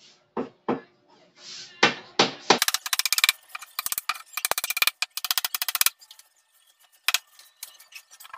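A claw hammer driving nails into plywood panels. There are several separate blows, then a quick run of rapid, light, sharp taps lasting about three seconds, and one more knock near the end.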